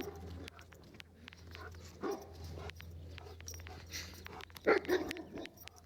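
A dog barking in two bursts, about two seconds in and again near five seconds, with faint clicking throughout.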